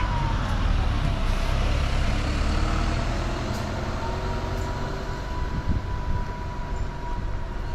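City bus engine running as the bus pulls away, its low rumble slowly easing off. A whine falls in pitch over the first two seconds, and a steady whine sounds in the second half.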